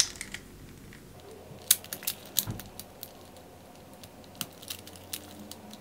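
Scattered sharp plastic clicks and taps from a Moyu RS3 M MagLev 3x3 magnetic speed cube being twisted and pried at to pop a piece out, in two clusters about two seconds and four and a half seconds in. The cube is very hard to open.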